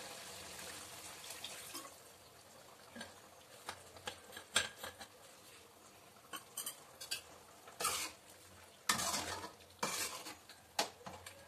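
Water poured from a steel tumbler into mutton curry cooking in an aluminium kadai, with a hiss for about the first two seconds. Then a steel ladle stirs the curry, clinking and scraping against the pan several times.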